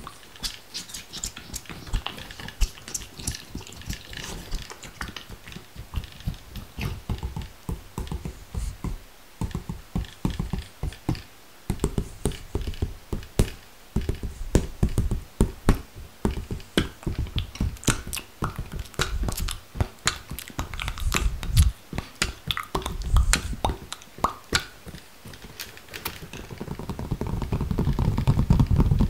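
ASMR trigger sounds right at the microphone: quick clicks, taps and mouth sounds in irregular rapid flurries. A low rumbling noise builds over the last few seconds.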